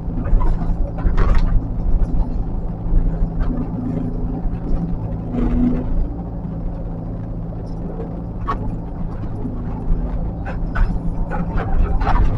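Diesel engine of heavy earthmoving equipment running steadily, with scattered knocks and clicks from the machine working, more frequent near the end.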